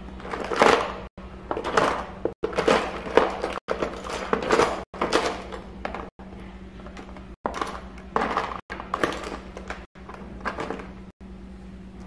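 Irregular rustling and clattering of things being handled and rummaged through, as someone searches for a green coloured pencil, over a steady low hum. The bursts come in uneven spurts and thin out in the second half.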